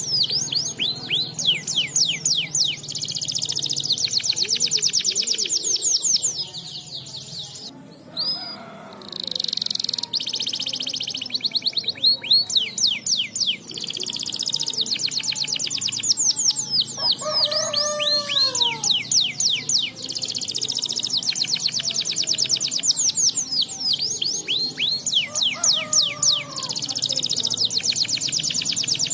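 Domestic canary singing a long run of fast, rolling trills with a short break about eight seconds in. A few lower, falling notes come in about two-thirds of the way through.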